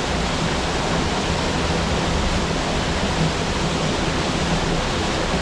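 Steady rush of falling water: an even, unbroken hiss with no single event standing out.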